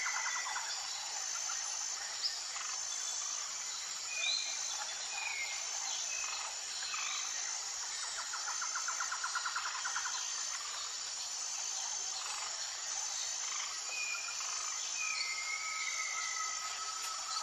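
Background birdsong with short whistled calls and a rapid trill about halfway through. Under it runs a high insect chirp repeating at an even pace over a steady hiss.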